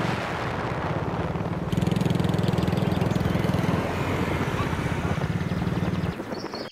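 Small step-through motorcycle's engine running steadily as it is ridden along. It gets louder about two seconds in and drops away near the end.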